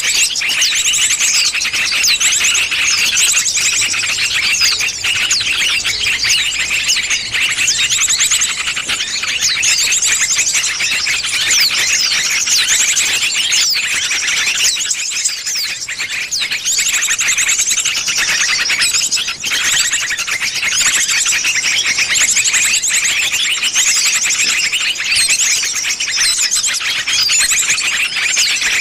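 Bird-lure recording: a dense, continuous chorus of many small birds chirping and trilling rapidly over one another, high-pitched and steady in loudness.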